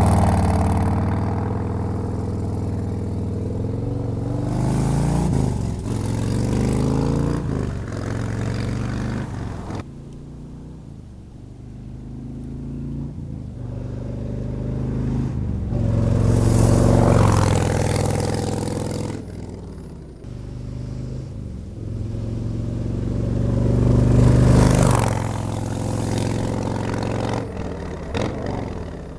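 Harley-Davidson Road Glide's V-twin running through TAB Performance 50 Cal slip-on mufflers, revving up and easing off several times, loudest about halfway through and again near the end.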